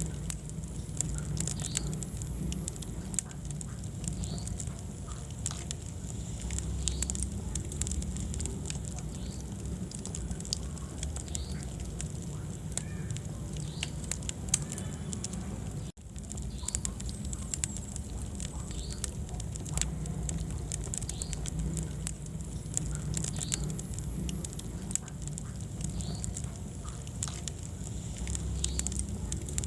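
Wood fire burning in a fireplace, with a steady low rumble of flames and frequent sharp crackles and pops. The sound cuts out for an instant about halfway through.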